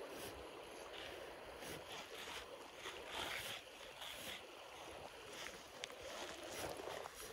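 Faint, steady rush of a shallow river running over stones.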